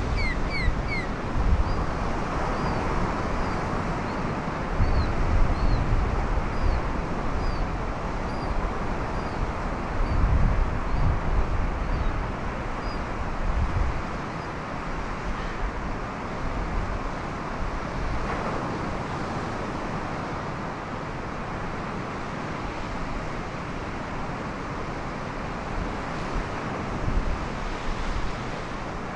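Ocean surf breaking and washing over a rock shelf, with wind buffeting the microphone in heavy gusts through the first half, then easing. A bird gives short high chirps over and over through the first dozen seconds or so.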